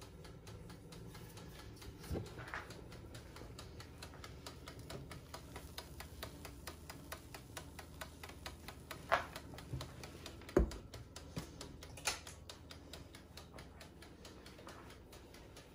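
Fast, light, even clicking, several clicks a second, with a few louder knocks about 2, 9, 10½ and 12 seconds in.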